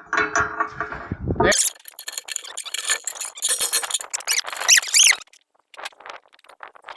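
Sharp, high-pitched squeaking and clicking of metal parts being handled and fitted during reassembly, stopping about five seconds in.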